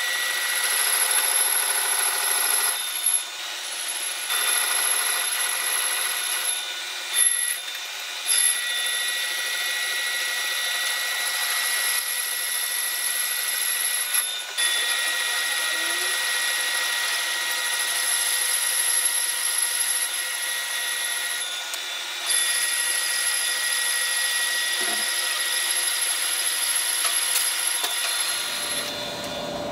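Lathe turning a metal wheel rim, the cutting tool giving a steady high-pitched squeal that breaks off briefly about five times as the cut is interrupted.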